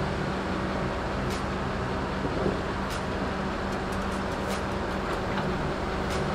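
Diesel engine of a Tigercat log loader running steadily under load as it swings logs, with skidder engines behind it and a few faint clicks.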